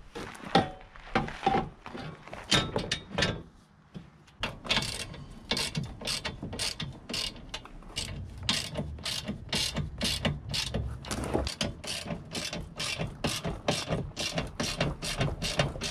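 Hand ratchet wrench clicking in a steady rhythm, about two to three clicks a second, as a bolt and nut are run in from under a car's front bumper. A few scattered metal knocks come before the clicking starts.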